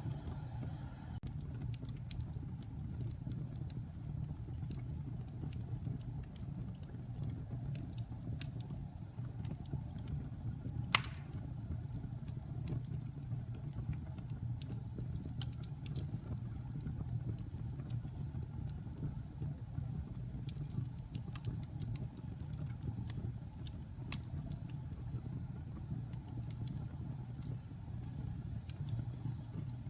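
Wood fire burning in a fireplace: a steady low rumble of flames with scattered crackles and snaps, and one sharp, louder pop about eleven seconds in.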